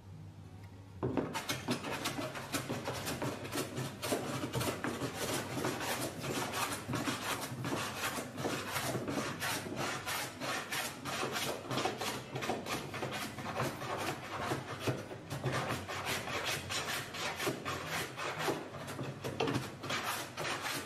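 Metal hand plane, a No. 5½ jack plane, shaving a walnut panel in quick repeated strokes, about three a second, each a rasping cut, starting about a second in. It is flattening a glued-up panel, working across the board to take down high spots.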